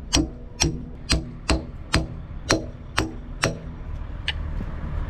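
Hammer blows on the steel of an excavator bucket tooth as it is driven into place: eight sharp, ringing strikes at about two a second, then a single lighter strike near the end, over a steady low rumble.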